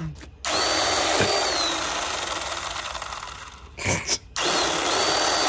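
Ryobi electric chainsaw with a 10-inch bar running, its chain slicing through a tomato. It starts about half a second in with a rising whine, fades off, stops briefly near four seconds, then starts again.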